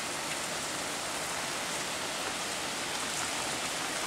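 Hurricane rain falling in a steady, even hiss.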